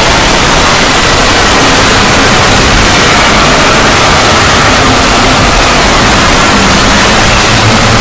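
Fan-made 'Void' logo sound effect: very loud, steady static-like noise filling the whole range, with faint tones wavering and gliding slowly underneath.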